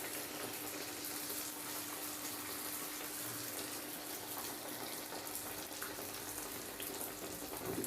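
Mandazi dough pieces deep-frying in hot oil: a steady sizzle with fine crackling.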